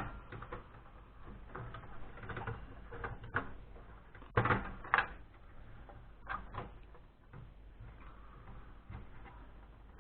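Irregular clicks, knocks and rattles of hands working inside a desktop PC case, pulling SATA cables loose. The two loudest knocks come about halfway through.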